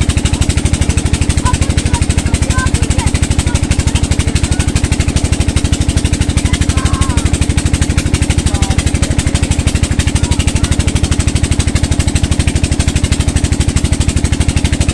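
Tubewell pump engine running at a steady speed with a rapid, even thumping, while water gushes from the outlet pipe into the concrete tank.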